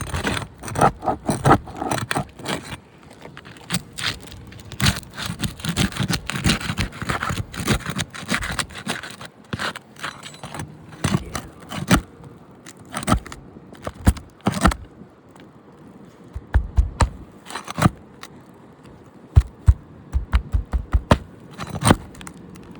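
Brittle asphalt shingles being pried up and their sealant strips torn loose: repeated scraping with sharp cracking and crackling, and quick runs of short cracks in the second half.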